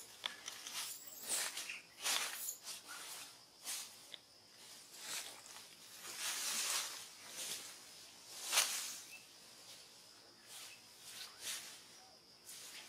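Irregular rustling and scuffing in the tree: short hissy bursts every second or so, the strongest about eight and a half seconds in, over a faint steady high tone.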